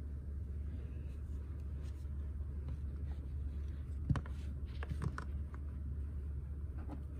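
A few light clicks and knocks as a small plastic toy figure is dipped into a clear plastic cup of water, the sharpest about four seconds in, over a steady low hum.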